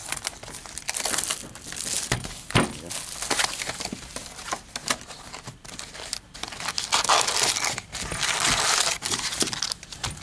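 Plastic wrapping crinkling and tearing as a sealed box of 2016 Donruss Baseball trading cards is opened, with the cardboard box and lid rustling and a few light knocks against the desk.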